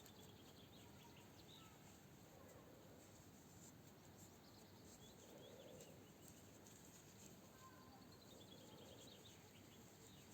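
Faint birdsong over quiet outdoor background noise: a bird sings a short run of notes falling in pitch, once at the start and again near the end, with scattered faint light clicks.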